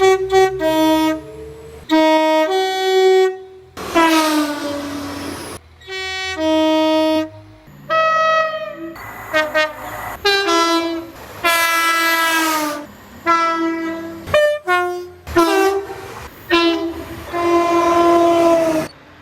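Locomotive air horns sounding a rapid series of blasts, several notes at once, some short toots and some held for a couple of seconds, broken by abrupt cuts between recordings. One long blast about four seconds in slides down in pitch as the train goes by.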